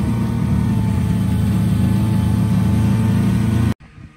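Snowmobile engine running steadily at an even speed, heard from the rider's seat. The sound cuts off abruptly near the end.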